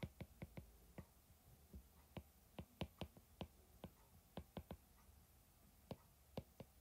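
Faint, irregular clicks and taps of a stylus tip striking a tablet's glass screen while handwriting, a couple of dozen short ticks spread unevenly.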